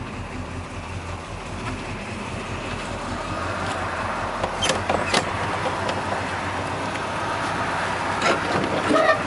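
1972 Oldsmobile Cutlass 442's V8 running as the car rolls in to park, heard from inside the cabin. A wider rushing noise builds about three seconds in, and there are a few sharp clicks near the middle and the end.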